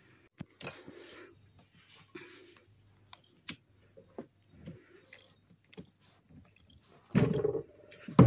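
Hands-on cleaning and handling noises: scattered clicks and light knocks with brief rubbing or wiping sounds, and a louder, heavier thump about seven seconds in and again near the end.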